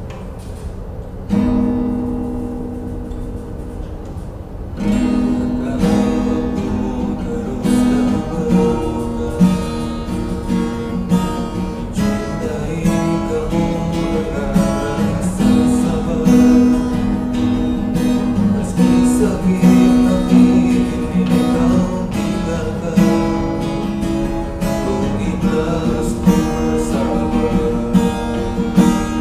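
Acoustic guitar being strummed in chords, with a man singing along. The guitar comes in about a second in and grows fuller about five seconds in.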